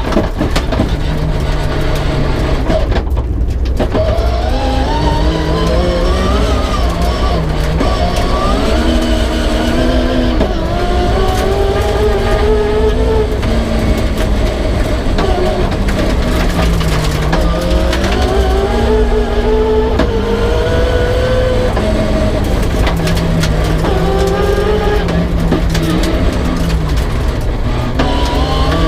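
Rear-wheel-drive Peugeot 306 rally car's engine at full load, its revs climbing and dropping again and again through gear changes, with a brief lift off the throttle about three seconds in.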